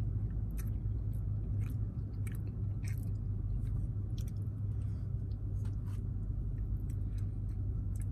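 A person chewing a mouthful of barbecue hash and rice, with irregular small mouth clicks, over a steady low hum.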